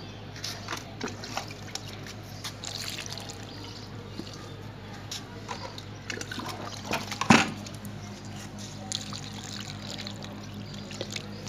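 Mustard-cake fertiliser water being poured into the soil of a potted rose, with splashing and trickling in scattered spurts over a steady low hum. A single sharp knock about seven seconds in is the loudest sound.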